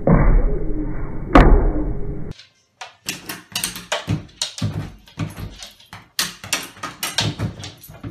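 A loud thump about a second and a half in. Then, from about two seconds in, a run of quick knocks and clatters, two or three a second, as a dog pushes its nose at the flap of a door's mail slot.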